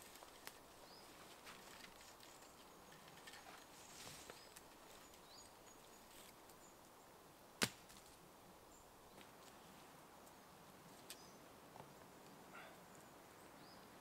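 Near silence in a forest: faint, scattered bird chirps over quiet background noise, and one sharp click about seven and a half seconds in.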